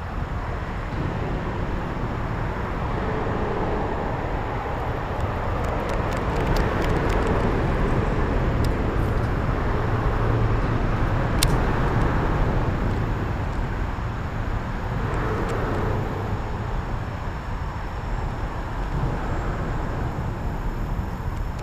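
Steady road traffic from a busy highway, passing vehicles' tyre and engine noise swelling and easing in turn, with a sharp click about halfway through.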